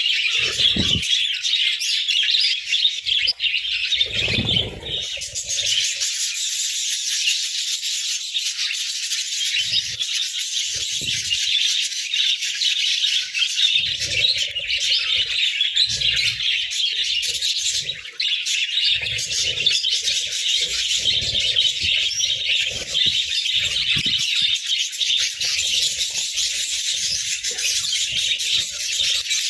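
A flock of budgerigars chattering and chirping without a break. Scattered low thuds and rustles come through now and then, mostly in the second half.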